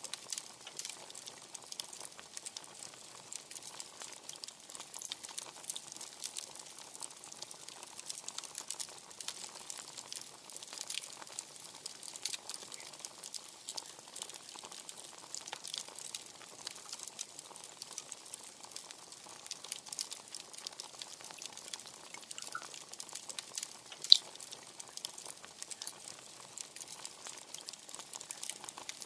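Wood bonfire crackling: a steady patter of small snaps and pops, with one much sharper, louder pop late on.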